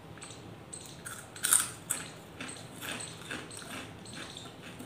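Chewing soft, not-crunchy fries: irregular wet mouth clicks and smacks, the loudest about a second and a half in.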